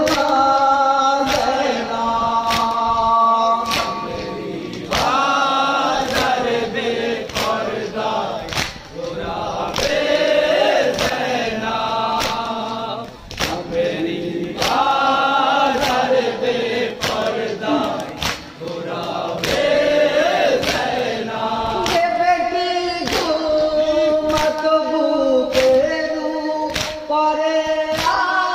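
A crowd of men chanting a noha, a Shia mourning lament, in unison. Their voices are punctuated by steady chest-beating (matam) strikes, about three every two seconds.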